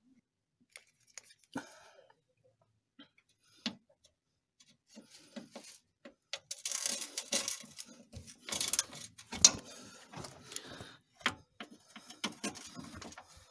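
Hand ratchet with a socket on an extension undoing an engine skid-plate bolt from below the car: a few scattered clicks at first, then from about five seconds in irregular runs of ratchet clicking and metal clinking.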